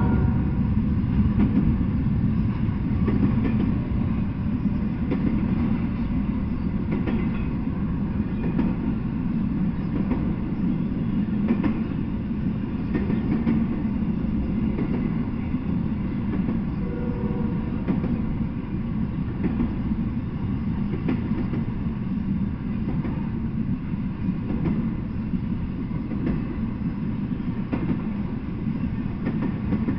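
Intermodal freight train of double-stacked containers and trailers rolling past: a steady, deep rumble of steel wheels on the rails with scattered clicks of wheels over rail joints.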